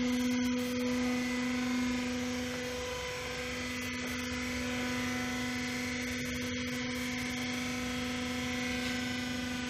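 Vacuum homogenizer emulsifying mixer running under power: a steady electric motor hum with a clear low tone and its overtones.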